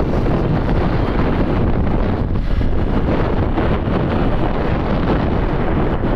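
Wind buffeting the microphone on a moving motorcycle: a steady, loud rumble with no break.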